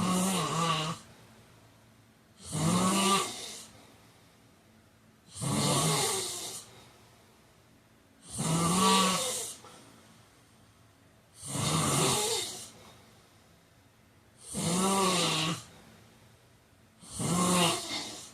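A man snoring in a steady rhythm, one snore about every three seconds, each lasting about a second.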